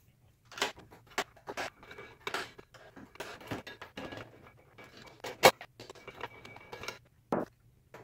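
Screwdriver turning the screws of a Dell Precision T7600's CPU heatsink: an irregular string of metal clicks, clinks and scrapes, with one sharp knock about five and a half seconds in.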